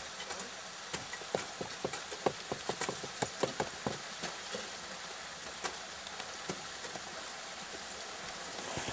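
Ice axe picks and crampon points striking and chipping into a frozen ice wall: a quick run of sharp crunching clicks about a second in, lasting a few seconds, then only occasional ones, over a steady hiss.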